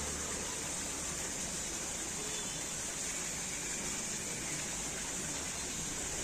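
Steady rush of flowing river water, with a steady high hiss over it.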